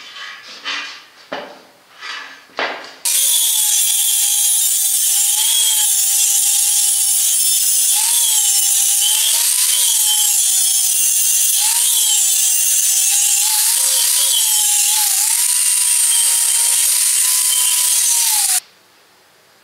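Angle grinder with a flap disc grinding down the welded corner of a steel square-tube joint. A few short scrapes and knocks come first. About three seconds in the grinder starts, a loud steady hiss with a motor whine that dips briefly in pitch several times as the disc bears on the metal. It cuts off suddenly near the end.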